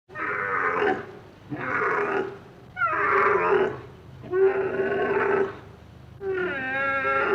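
An animal calling five times in a row, each call about a second long and steadily pitched, with short pauses between calls.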